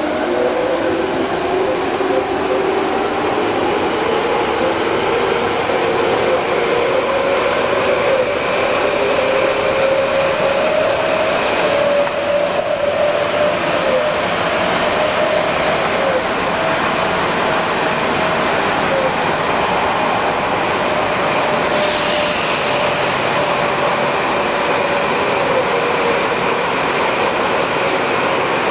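Tokyu 8500 series train from inside the car: the whine of its Hitachi GTO inverter and traction motors rises in pitch through the first ten seconds as the train accelerates, then holds steady at speed, over the steady rumble of the wheels on the rails. A short hiss comes in about two-thirds of the way through.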